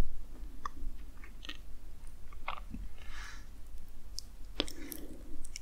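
Close-miked soft mouth sounds: a scattering of small wet clicks and lip smacks, with a soft breathy exhale about three seconds in, over a low steady hum.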